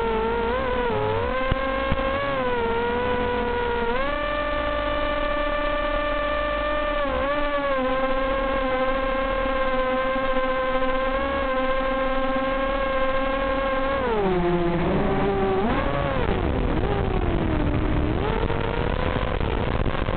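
Hexacopter's six motors and propellers whining in flight, heard through the wireless video link's audio. The pitch steps up about four seconds in, holds steady, then drops and wavers from about fourteen seconds as the throttle changes.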